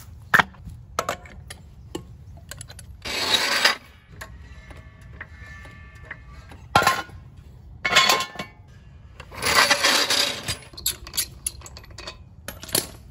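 Hand tools removing a pickup's wheel, a floor jack and a lug wrench working the lug nuts: a run of sharp knocks and clanks, with two longer stretches of scraping rattle, about three seconds in and again around ten seconds in.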